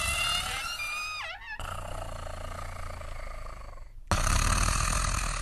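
Music and comedy sound effects in edited segments: pitched tones with a falling glide about a second in, an abrupt cut, then a louder, noisier passage starting suddenly near the end.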